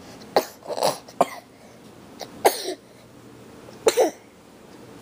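Infant with stridor making several short, harsh, cough-like noises as it breathes, the loudest about halfway through.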